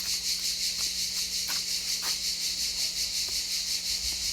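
Insects singing in chorus: a steady, high-pitched, rhythmically pulsing buzz, with a few faint clicks.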